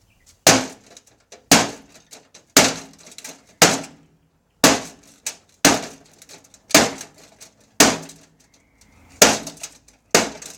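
Hammer blows on a microwave oven: about ten hard strikes, roughly one a second, each a sharp crash followed by brief rattling.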